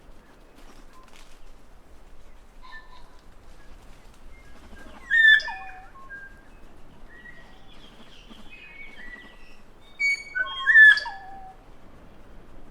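New Zealand kākā calling: two loud calls of harsh, sliding whistled notes, about five seconds in and again around ten to eleven seconds in, with softer whistles between them.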